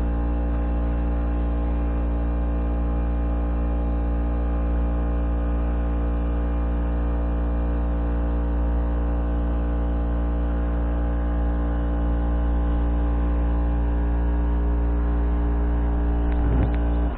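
Electric air compressor running, a steady, unchanging motor hum that cuts off suddenly at the end.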